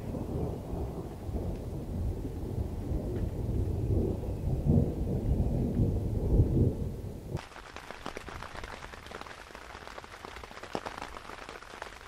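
Thunder rumbling continuously. About seven seconds in it gives way abruptly to steady, quieter rain pattering on tent fabric.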